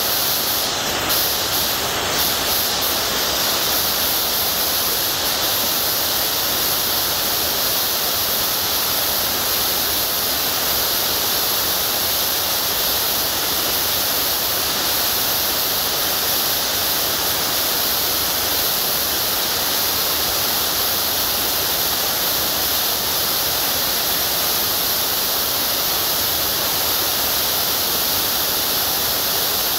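A steady, even hiss at a constant level, with a few faint clicks in the first two or three seconds.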